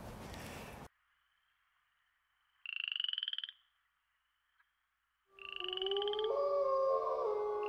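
The outdoor background cuts off abruptly about a second in. About three seconds in a short, pulsed, rising croak-like call sounds. From about five seconds it repeats over several sustained tones that step in pitch.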